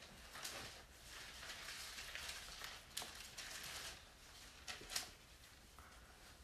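Quiet rustle of thin Bible pages being turned, with sharp paper crinkles about three seconds in and again about five seconds in.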